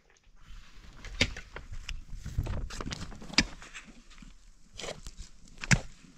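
Pickaxe striking stony earth while digging: three sharp hits, roughly two seconds apart, with weaker knocks between them.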